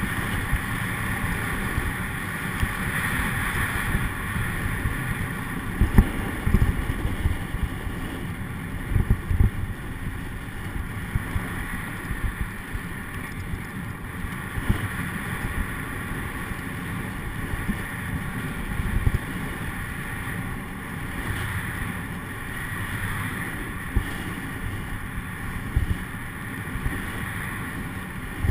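Snowboarding through deep powder: a steady rush of wind on the camera microphone mixed with the board hissing through the snow, with occasional low thumps, the clearest about six and nine seconds in.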